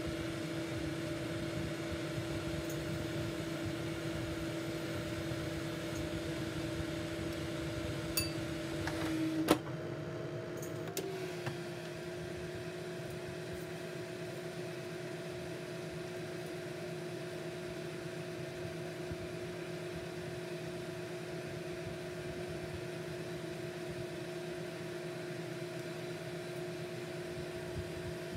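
Steady hum of a kitchen appliance's fan motor. A sharp click comes about nine seconds in, after which the hum is a little quieter and slightly higher in pitch.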